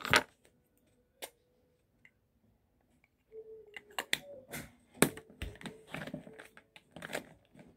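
Light clicks and clatter of makeup tubes and cases being handled and rummaged through in a fabric makeup bag: a couple of single clicks, then a busier run of small knocks and clicks from about three seconds in.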